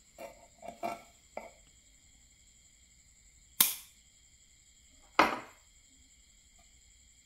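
A few light metallic clicks, then two sharp snaps about a second and a half apart as pliers cut through thin wire.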